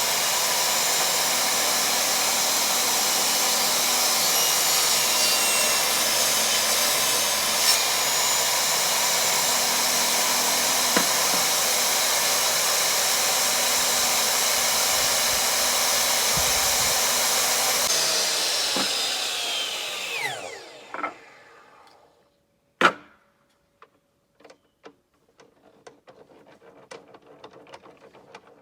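An electric woodworking power tool runs steadily for about eighteen seconds, then its motor winds down with falling pitch. A few seconds later comes a single sharp knock, followed by light scattered taps.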